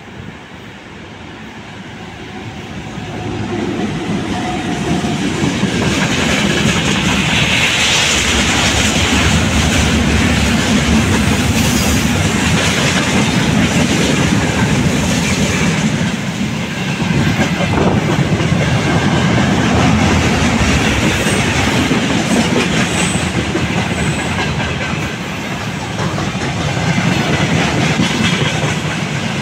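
VL10U electric locomotive with a freight train passing close by: the noise grows over the first few seconds as the locomotive comes up and goes past, then the loaded freight wagons roll by with a steady rolling noise and clickety-clack of wheels over rail joints.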